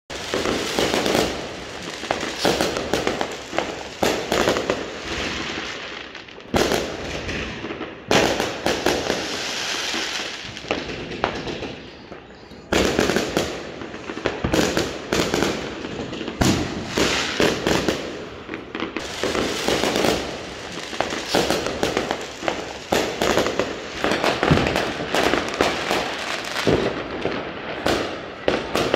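Many aerial fireworks going off overhead at once: a dense, continuous barrage of bangs and crackling.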